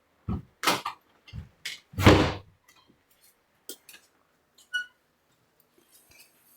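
Knocks and thumps of objects being handled and set down, the loudest about two seconds in. Later comes a short, lightly ringing clink.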